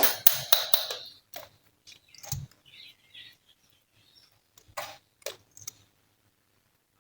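Glossy slime being squished and pressed by hand, giving wet clicks and pops. They come in a dense cluster during the first second, then as scattered single clicks with quiet gaps between.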